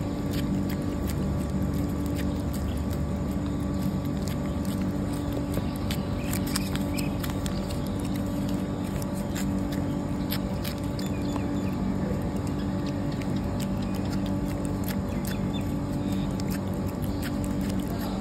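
A cat licking a creamy treat from a squeeze tube: irregular small wet clicks of tongue and lips, over a steady low hum.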